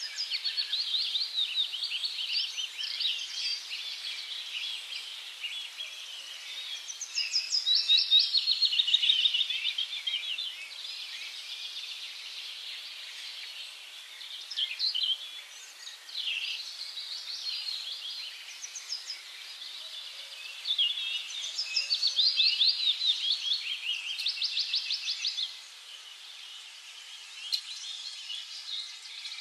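Several wild birds singing and chirping over each other, with bursts of fast, high trills, loudest about a quarter of the way in and again past the two-thirds mark.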